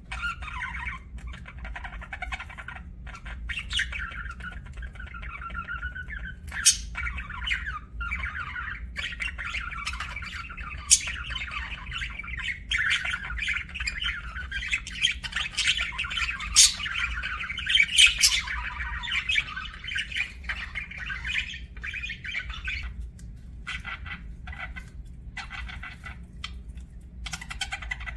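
Budgerigars chattering and warbling almost without a break, with a few sharp, loud, high squawks now and then.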